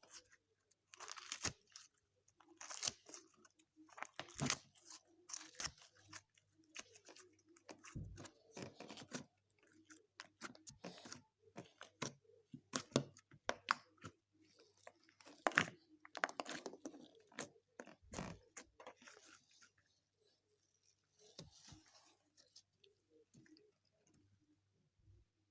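Homemade slime being squeezed and worked by hand, giving irregular sticky clicks and crackles that thin out near the end.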